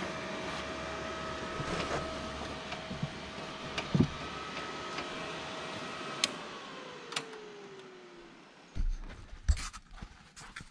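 A small electric motor on the kart, likely a fan or pump, whines steadily over a low hum. It is switched off with a click about six seconds in and spins down with falling pitch. Knocks and rattles from handling the kart's parts follow near the end.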